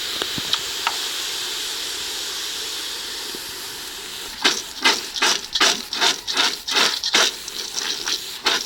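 Salted water hissing and steaming as it boils off in a hot pan of roasting peanuts. From about four and a half seconds in, the peanuts are stirred in the pan with quick scraping strokes, about three a second.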